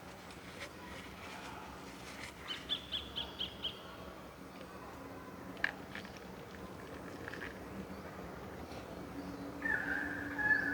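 Quiet rainforest ambience with a bird calling a quick run of about six high, evenly spaced notes a few seconds in. A single sharp click comes about halfway, and near the end a steady high note is held for about a second.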